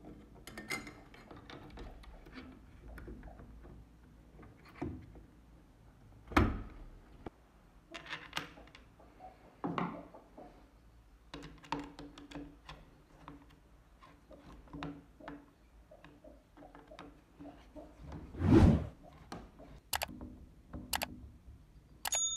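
Clicks, knocks and scrapes of a Mauser Kar98k's steel trigger guard and floorplate being fitted into the wooden stock and screwed down, with one loud thunk late on and two sharp clicks after it. A short chime sounds at the very end.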